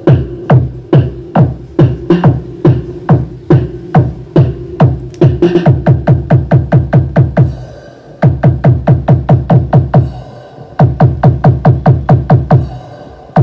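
Electronic dance music with a heavy kick-drum beat, about two to three hits a second, played loud through a Storm Quake 15-inch 2000-watt speaker as a sound test. The beat drops out briefly twice, a little past the middle and again about three-quarters of the way through.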